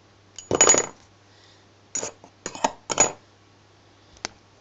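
Thin metal top cover plate of a microwave turntable synchronous motor clattering as it is handled and put down on a wooden bench. There is one loud rattling clatter about half a second in, three shorter metallic clanks around two to three seconds in, and a single sharp click near the end.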